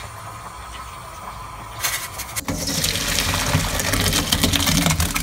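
Parboiled rice with dill and fava beans and its boiling cooking water poured from the pot into a stainless steel colander, the water gushing and splashing through the holes. The pour starts about two seconds in with a knock, then runs as a loud steady rush.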